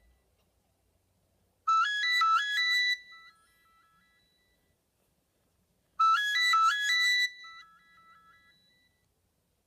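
A Nokia 3510 ringtone playing from a Nokia 7100 Supernova's speaker. A short phrase of quick notes stepping upward is played twice, about four seconds apart, each time ringing out briefly.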